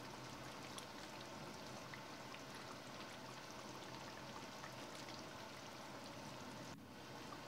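Faint, steady sizzle of a curry simmering in a cast-iron pot, with small bubbles popping here and there.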